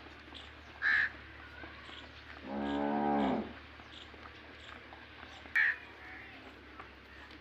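One moo from cattle, about a second long, a little before the middle. Two short, loud crow caws, one about a second in and one past the middle, with faint bird chirps throughout.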